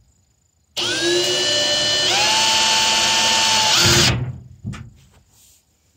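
Power drill driving a metal screw into a corrugated sheet-metal panel. The motor whines steadily for about three seconds, steps up in pitch once partway through, then winds down and stops.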